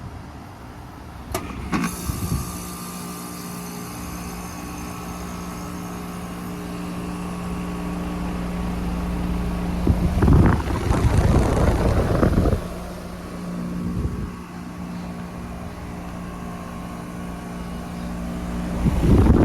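2022 Gibson heat pump outdoor unit in its defrost cycle: a sharp click about a second in, then the compressor running with a steady hum. Two loud rushing surges break over the hum, one about halfway through and one at the end.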